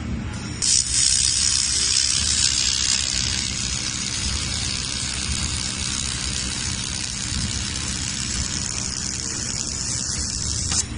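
Handheld fiber laser welder firing on stainless steel: a steady high hiss of the weld and its shielding gas that starts suddenly about a second in and cuts off just before the end, over the constant low hum of the machine.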